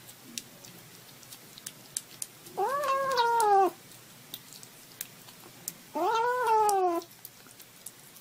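A kitten meowing twice as it eats, each call about a second long and rising then falling in pitch. Faint clicky chewing and smacking sounds fill the gaps between the calls.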